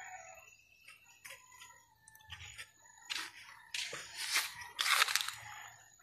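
A rooster crowing at a distance, a faint drawn-out call, with several loud bursts of rustling noise in the second half.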